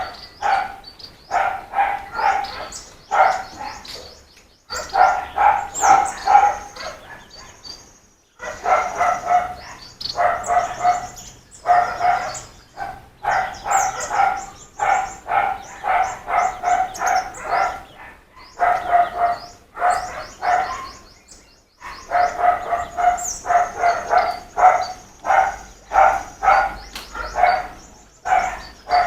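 A dog barking over and over in quick runs of about three barks a second, pausing briefly a few times, with birds chirping faintly above.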